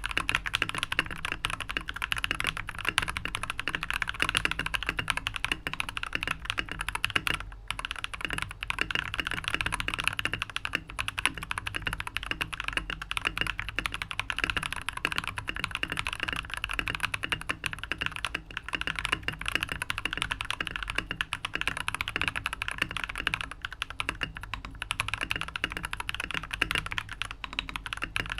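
Continuous typing on a tape- and foam-modded TM680 mechanical keyboard with Glorious Panda tactile switches lubed with Krytox 205g0, lubed stock stabilizers and Akko keycaps: a dense stream of key clacks, with a brief pause about seven seconds in.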